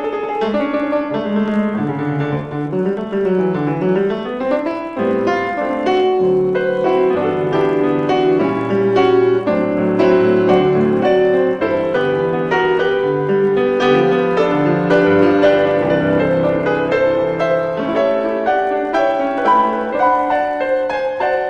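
Piano music, a busy accompaniment with many quick notes.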